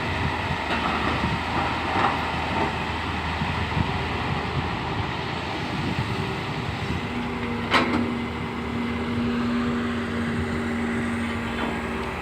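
Excavator engine running steadily under work, with a single sharp clank about eight seconds in and a steady low hum joining shortly before it.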